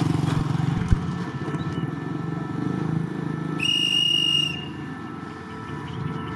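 A single shrill whistle blast, about a second long, a little past halfway, over the steady low rumble of an idling diesel locomotive.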